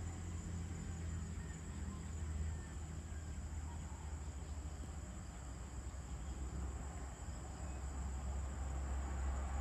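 Outdoor evening ambience: a faint, steady high insect chorus over a steady low rumble.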